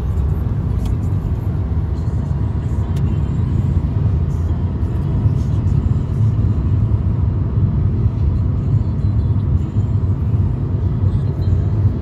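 Steady low rumble of road and engine noise inside a car's cabin while it drives along a highway.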